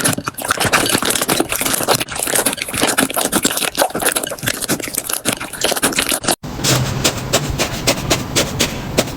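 Slime being worked by hand: a dense, irregular run of sticky crackling clicks and pops. About two thirds of the way through it cuts sharply to another stretch of the same clicking, now over a low steady hum.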